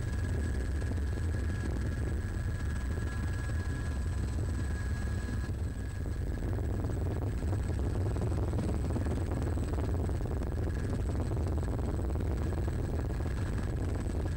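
Helicopter rotor and engine noise heard on board: a steady, unbroken low drone.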